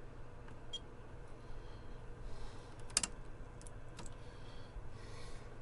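Steady low electrical hum on an electronics test bench, with a few sharp clicks of test-gear knobs and switches being turned, the loudest about three seconds in.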